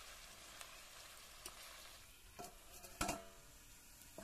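Pork pieces and onions sizzling in a steel wok as a metal spatula stirs them, with a few sharp scraping clicks. About three seconds in, a steel bowl set over the wok as a lid clangs once and rings briefly.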